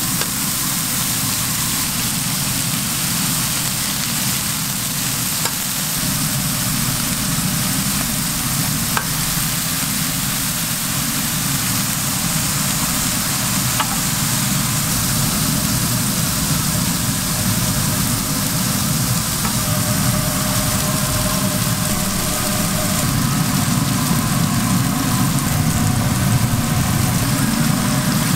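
Beef patties and onions sizzling steadily on a flat-top griddle, over a steady low hum, with a couple of faint clicks.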